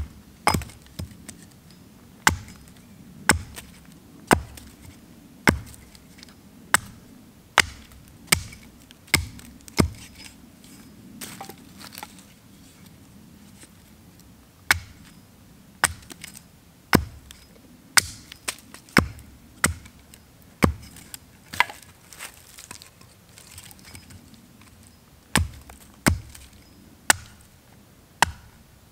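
Small axe chopping into wood on a tree stump: sharp, single strikes about once a second as the end of a stick is cut to a point. It pauses twice for a few seconds.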